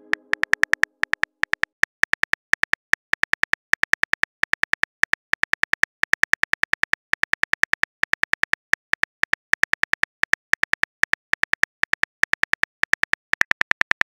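TextingStory app's keyboard typing sound effect: a rapid stream of short, even clicks, several a second, as a message is typed out letter by letter.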